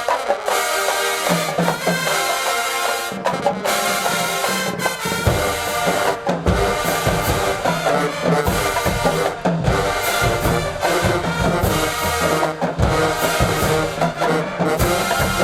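HBCU marching band playing: trumpets and trombones carry the tune, and low brass and drums come in heavily about five seconds in.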